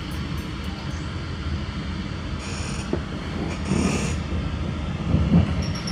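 Steady rumble of a Koploper (NS ICM) electric intercity train's wheels and running gear, heard from inside the carriage. There are a few knocks, as over rail joints or points, and twice a brief high squeal.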